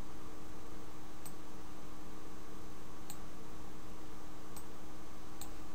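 Computer mouse clicking four times, spaced a second or two apart, over a steady background hiss and faint hum.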